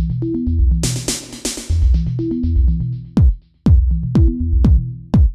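Background electronic music: deep bass notes, with a hissing burst about a second in, then a drum-machine kick beat about twice a second in the second half.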